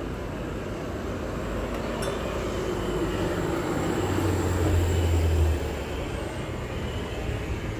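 City street traffic noise, with a deep rumble that builds and is loudest about five seconds in, then drops away quickly.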